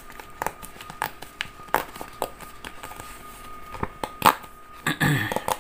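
Perforated side edges of a paper PIN mailer being torn off by hand: a string of small, irregular rips and crackles, with a louder paper rustle near the end.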